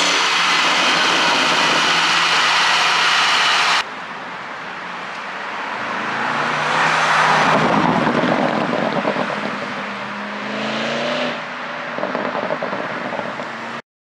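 Porsche Panamera Turbo S E-Hybrid's twin-turbo V8 exhaust: revs held high, then blipped up twice, each time followed by a string of crackles and pops as the revs fall, the overrun popping of a pop-and-bang ECU tune. The sound cuts off suddenly just before the end.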